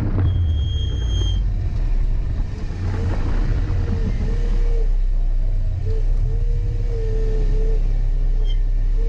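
Mazda Miata race car's four-cylinder engine running low and steady, heard from the open cockpit as the car slows to a crawl after its run. A brief high beep sounds near the start.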